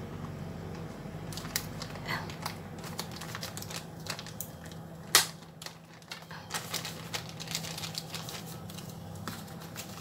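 Plastic zip-lock freezer bag crinkling and clicking as hands squeeze the air out and press its zipper seal shut, with one sharper click about five seconds in.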